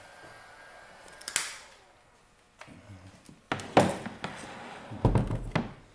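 A heat gun's fan whirring down and fading out after it is switched off. Then a sharp click about a second and a half in, followed by several loud knocks and rustles of handling.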